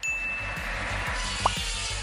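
Background music with a steady low beat under a hiss, opened by a short high chime and marked by a single click about a second and a half in, sound effects that go with an animated subscribe-button overlay.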